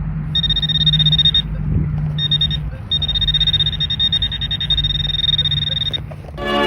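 Metal-detecting pinpointer sounding its high buzzing alert over a buried target in a dug soil plug: short bursts near the start, then a continuous alert of about three seconds that cuts off near the end.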